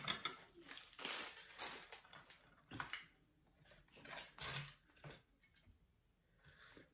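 Crinkling of a plastic bag of herbs, then light clicks and taps of wooden chopsticks and oyster shells on a plate as greens are piled onto a raw oyster. The handling is busiest in the first few seconds, then thins to a few scattered clicks.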